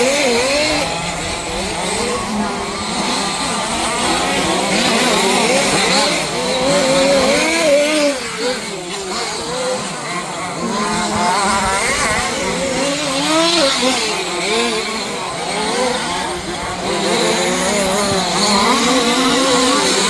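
Several 1/5-scale off-road RC cars' small two-stroke petrol engines racing together, their overlapping pitches rising and falling as they rev up and back off around the track.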